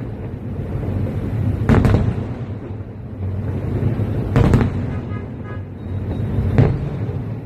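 Fireworks going off: sharp bangs about two seconds in and again about four and a half seconds in, each a quick double, then a single bang near the end, over a steady low rumble.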